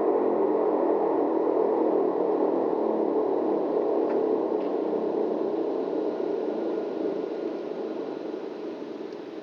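Restored Carter-type air raid siren sounding a loud, steady tone, which fades over the last few seconds.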